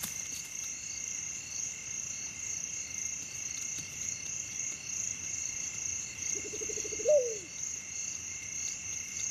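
Night insect chorus: crickets trilling steadily in several high pitches. About seven seconds in, a single short animal call sounds, a quick buzzy note that rises and then falls.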